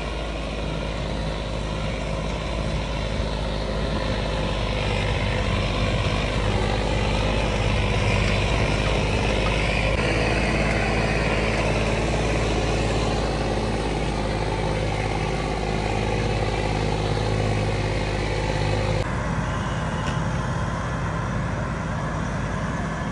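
John Deere tractor's diesel engine running steadily, growing louder over the first several seconds, with the sound shifting abruptly about 19 seconds in.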